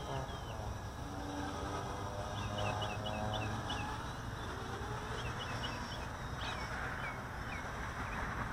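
DF250 quadcopter's electric motors and props humming steadily in flight, with birds chirping in several quick runs of short falling notes.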